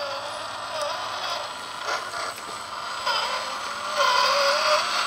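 Electric motor and gear drivetrain of a Cross RC UC6 6x6 scale truck whining as it crawls, the pitch wavering up and down with the throttle. A few light clicks come about two seconds in, and the whine gets louder about four seconds in.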